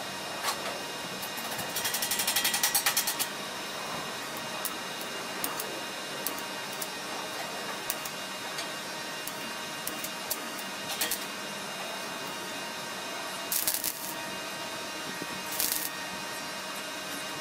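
Stick welding arc crackling in short bursts as steel bumper plates are tack-welded: the longest burst, about a second and a half, comes about two seconds in, then brief tacks around eleven, thirteen and a half and fifteen and a half seconds, over a steady background hum.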